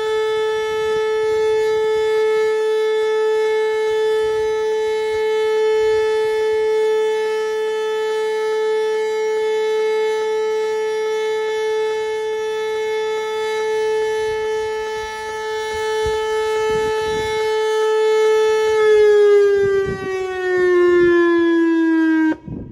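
Whelen WPS electronic outdoor warning siren holding a steady, loud tone, then its pitch falls over the last few seconds before it cuts off suddenly near the end.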